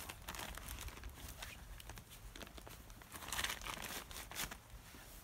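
Plastic tarp crinkling and rustling as it is bunched up by hand and pushed into a carved wooden clothes peg, in irregular bursts with a louder rustle about three and a half seconds in.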